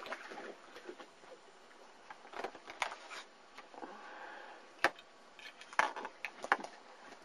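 A German Shepherd puppy chewing a wooden stick while another tugs at it: a handful of sharp, irregular cracks and clicks.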